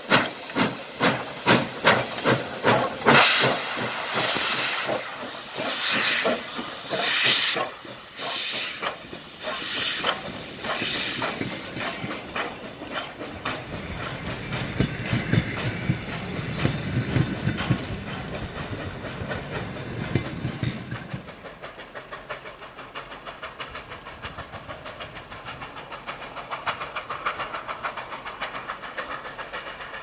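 Steam locomotive pulling a passenger train away: sharp exhaust chuffs over a hiss of steam, quick at first, then spaced about one a second. From about halfway the passing coaches take over with a low rumble and wheels clacking over rail joints, then a lighter clatter as the train moves off.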